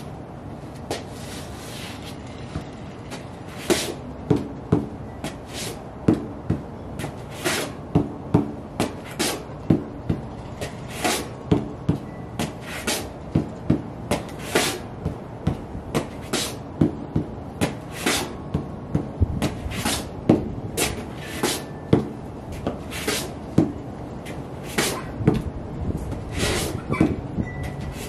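Ugg sheepskin boots tapping and scuffing on a concrete floor: irregular sharp taps, sparse at first, then about two a second from a few seconds in.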